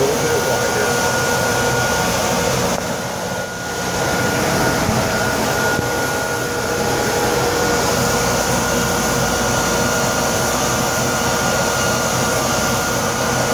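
Whitewall grinding rig running: a tire spins on a machine while a grinder cuts into the rubber sidewall to expose the white stripe. It makes a loud, steady whirring rasp with a steady whine, easing off briefly about three seconds in.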